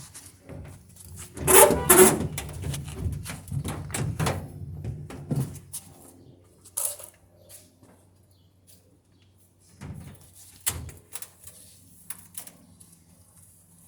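A portable washing machine being tipped over and laid down on its front, its cabinet bumping and scraping against the floor. There are loud knocks about a second and a half in, then more scraping, and a few lighter thumps later on.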